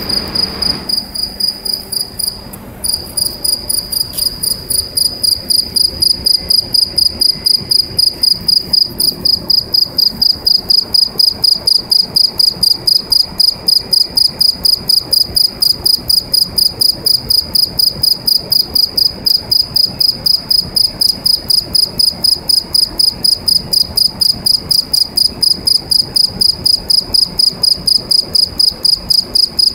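Cricket singing inside a metal pipe: a loud, high, pure chirp repeated evenly about four times a second.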